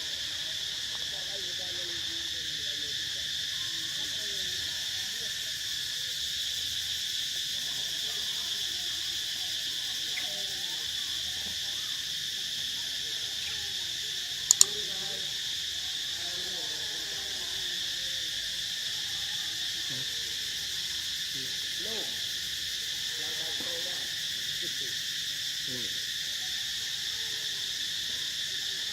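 Steady shrill insect chorus droning without a break in tropical forest, with faint short gliding calls beneath it. A single sharp click sounds about halfway through.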